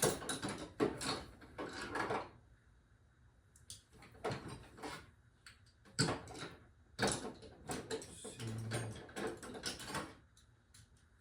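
Metal hand tools clattering and clinking in irregular bursts as someone rummages through them.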